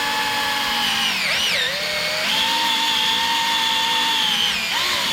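Power drill running a 6.3 mm bit, drilling out a stripped thread in a motorcycle engine's cam bearing cap to take a Helicoil. A steady motor whine that slows and wavers about a second in, picks back up, then drops again near the end.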